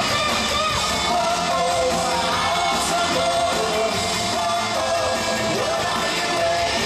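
Live pop music: male singers singing into handheld microphones over instrumental backing, amplified through an arena sound system.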